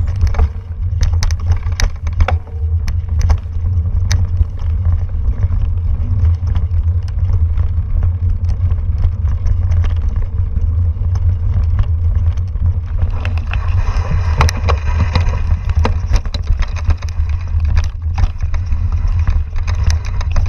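Wind buffeting a helmet- or bike-mounted camera microphone during a fast mountain-bike ride on rough singletrack, with frequent sharp knocks and rattles from the bike over the bumpy trail. A brighter hiss rises for a few seconds past the middle.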